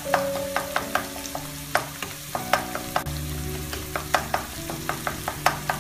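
Wooden spatula tapping and scraping in a nonstick wok, breaking up scrambled egg among frying vegetables, with a soft sizzle underneath. The taps come irregularly, about two or three a second.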